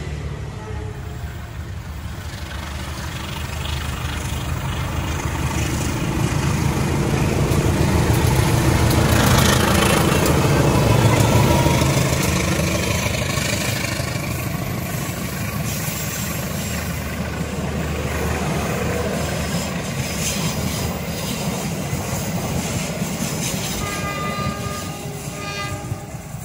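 A train passing close by: a heavy rumble of the locomotive and wagons on the rails that grows louder to a peak about halfway through, then slowly fades.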